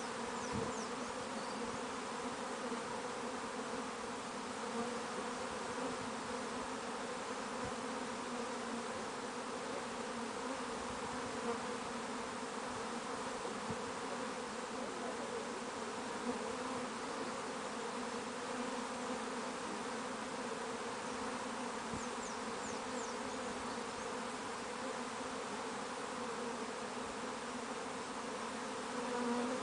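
Dense, steady buzzing hum of a large honeybee swarm flying around and crowding onto a wooden Langstroth hive box as it moves in.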